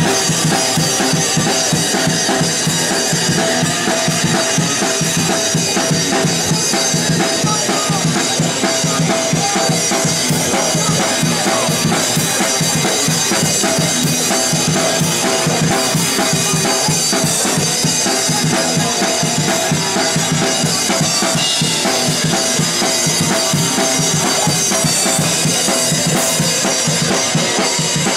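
Crust punk band playing fast and loud live: a drum kit pounding bass drum and snare at a rapid pace, with electric guitar, without a break.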